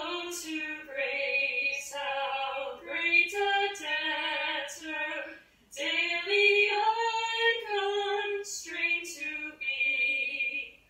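Two women singing a hymn together without accompaniment, in sustained sung phrases with a short breath pause a little over halfway through. The singing is heard played back through a computer's speakers.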